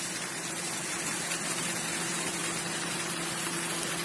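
Fountain water splashing steadily, with a steady low hum underneath.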